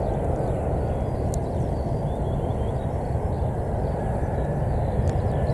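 Distant jet airliner on approach, a Boeing 717 with two rear-mounted engines, heard as a steady low rumble. A faint thin engine whine comes in about four seconds in.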